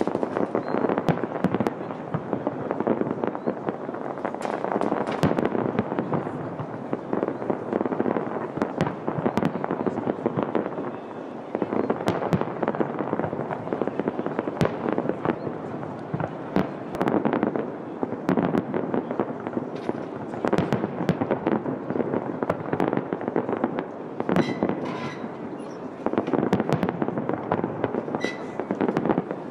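Fireworks display with aerial shells: a dense, unbroken run of bangs and crackling, many reports overlapping each second.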